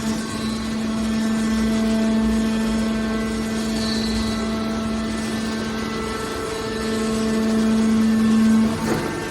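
Hydraulic can baler running with a steady machine hum and whine over a noisy rumble, a little louder for a couple of seconds near the end.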